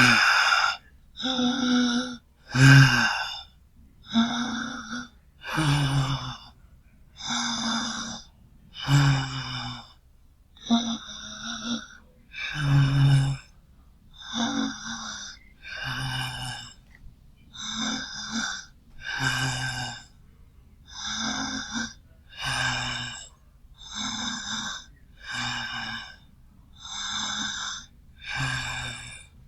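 A young woman breathing deeply in and out at a slow, even pace, about one breath every second and a half with short pauses between. Some breaths carry a light hum of the voice.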